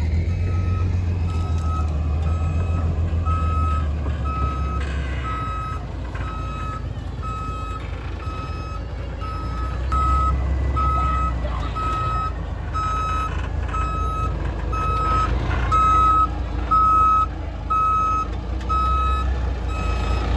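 Dump truck's reversing alarm beeping at an even rate, one high tone about once a second, over the low rumble of the truck's engine.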